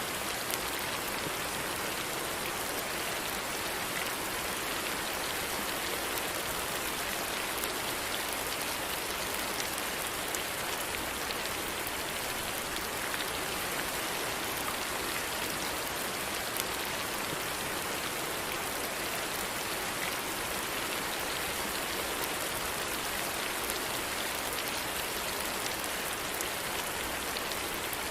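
Steady rain falling and pattering on a surface, an even hiss with many small drop ticks and no let-up.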